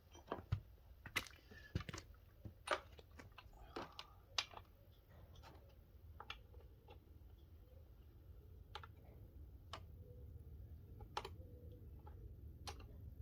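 Faint, irregular light clicks and taps of handling, bunched in the first few seconds and sparser after, over a low background hum; the rotary tool is not grinding.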